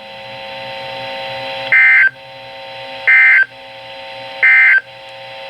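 Weather radio end-of-message (EOM) code: three short, loud digital data bursts about 1.4 s apart, marking the end of a NOAA Weather Radio warning. Between the bursts there is steady radio hiss with a faint hum.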